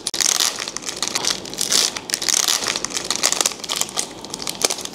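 Foil wrapper of a Pokémon trading-card booster pack being torn open by hand and pulled apart, a dense run of crinkling and crackling.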